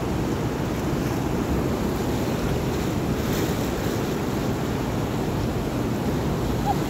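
Steady rush of a fast river current and rapids, with wind buffeting the microphone.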